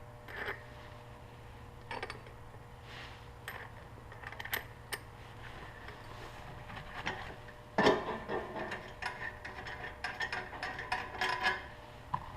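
Metal parts clinking and tapping as a washer and rear wheel adjuster are handled and fitted onto a motorcycle's rear axle. A few separate clicks at first, then a busy run of clinks from about two-thirds of the way in.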